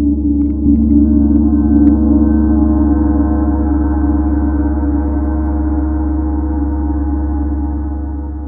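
Large planet gong played with a felt mallet, its deep, shimmering wash swelling under a further soft stroke over the first couple of seconds, then ringing on and slowly dying away near the end.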